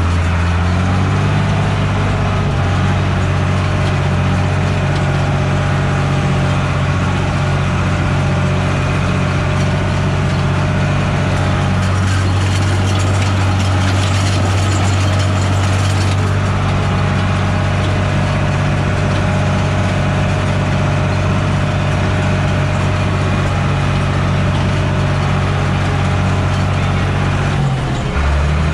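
Fendt Favorit 611 LSA tractor's six-cylinder diesel engine running steadily under load while pulling a seed drill, heard from inside the cab. The engine note picks up slightly in the first second, then dips briefly and recovers near the end.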